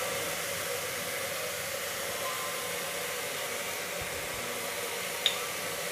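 Steady hiss of chopped vegetables and tomatoes frying in oil in a pressure cooker, with a faint tick about five seconds in.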